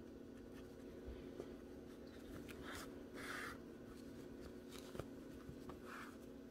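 Faint rustling and scraping of yarn being drawn through crocheted stitches with a yarn needle while the stuffed crochet piece is handled, in a few soft strokes about three seconds in and near the end, over a steady low hum.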